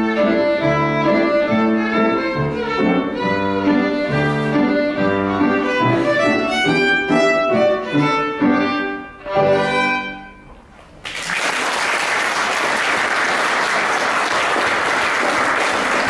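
Violin and piano duet playing to the final note of the piece about ten seconds in, followed after a short pause by audience applause.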